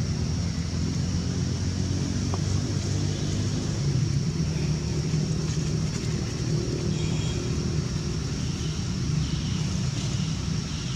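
Steady low rumble of a running motor, with its pitch wavering slightly, and a faint steady high hiss above it.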